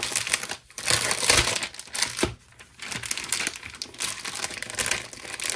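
Clear plastic packaging of a pack of binder pages crinkling as hands open and handle it, in two spells with a short pause about two and a half seconds in.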